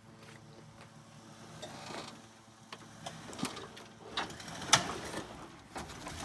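A vehicle engine running faintly at low revs while a truck is strained over onto its side by a tow strap, with scattered clicks, creaks and knocks from the body and suspension, the sharpest about three quarters of the way through.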